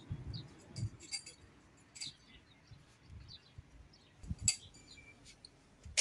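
Small birds chirping in short, scattered calls, with a few sharp clicks and soft low knocks mixed in.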